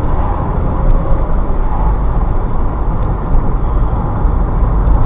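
Steady low rumble of a car driving, engine and tyre noise heard from inside the cabin through a dash camera's microphone.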